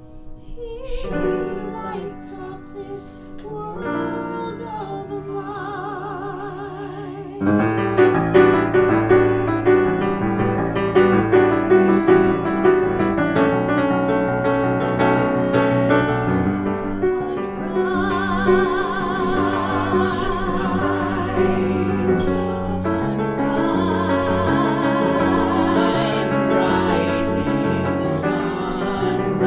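A musical-theatre song: a voice singing with vibrato over instrumental accompaniment. About seven seconds in, the music swells fuller and louder.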